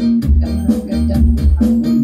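Background music with a steady beat: strong bass, percussion and a repeating melody.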